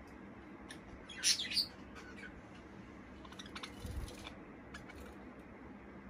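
Budgerigars chirping: a loud burst of quick high chirps about a second in, then softer chirps and clicks around the middle, with a soft low thump near the end of them.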